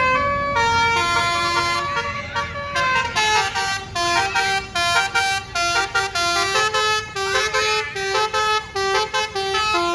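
Bus telolet basuri horn playing a tune: a string of held notes, then quick short notes from about three seconds in.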